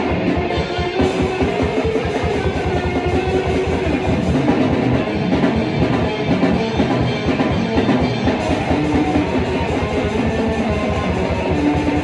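Heavy metal played on electric guitar with drums, loud and continuous, with a fast, dense rhythm and some held guitar notes.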